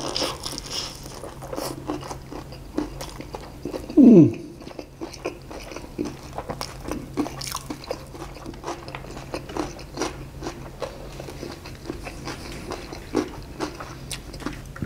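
Close-up biting and chewing of crispy battered fried chicken topped with sambal matah, the crust crunching again and again. About four seconds in, one loud, brief sound falls in pitch.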